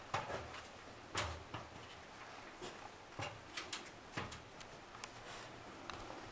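Faint, irregular knocks and taps of hiking boots and hands on the rungs of a metal ladder as someone climbs it.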